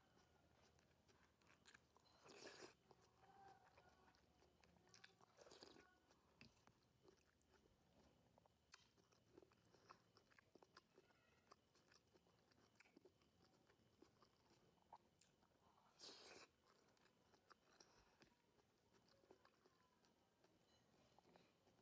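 Faint, close-miked chewing and mouth sounds of someone eating spoonfuls of white rice in soup, with many small clicks and three brief louder bursts.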